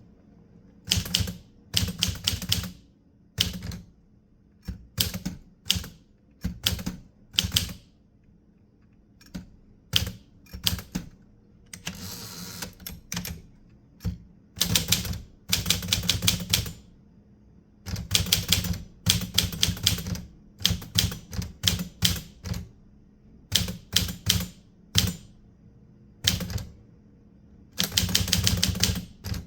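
Typewriter being typed on: quick runs of sharp keystrokes in short bursts separated by pauses. A softer noise lasting about a second comes about twelve seconds in.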